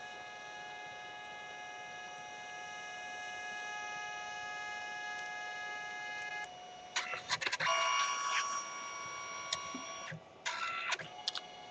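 Canon Selphy CP760 dye-sublimation photo printer running: a steady motor whine made of several tones for about six seconds, then a burst of sharp mechanical clicks and a louder, higher whine, more clicks about ten seconds in, and the steady whine again near the end.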